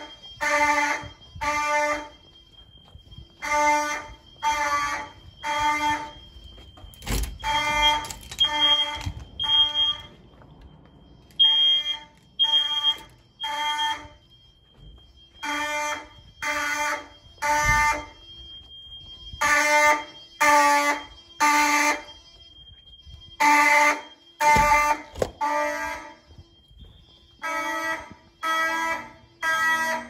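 Simplex 4903-9104 fire alarm horns sounding in the code 3 temporal pattern of three blasts and a pause, repeating about every four seconds: the building's general evacuation signal during a full alarm. A faint, steady high tone runs underneath.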